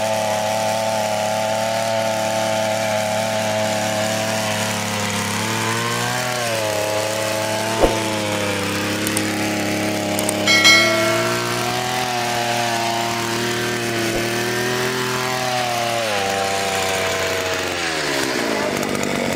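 Air-cooled 52cc two-stroke single-cylinder engine of a hand-held earth auger running as the auger bores into soil. Its speed dips briefly about six seconds in and again around sixteen seconds, and falls away near the end. A brief high ring sounds about ten seconds in.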